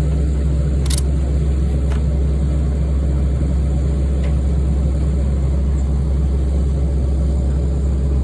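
Truck engine idling with a steady low hum, and a sharp click about a second in.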